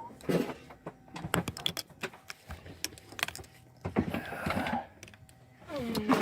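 Irregular clicks and knocks of things being handled, with a short rustling scrape about four seconds in.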